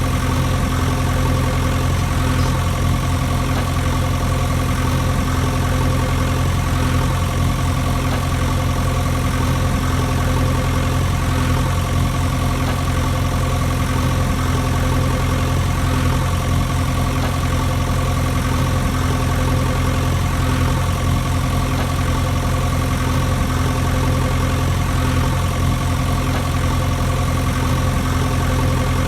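An engine idling steadily, with a low, even rumble that does not change in pitch or loudness.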